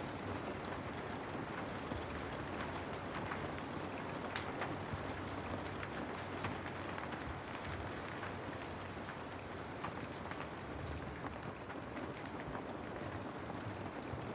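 Steady rain falling, with individual drops pattering on a surface now and then over an even hiss.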